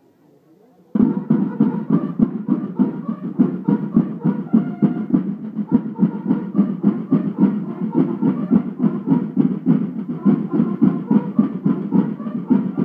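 A banda de guerra of bugles and snare drums starting together abruptly about a second in, the bugles sounding a march call over a fast, steady drum beat.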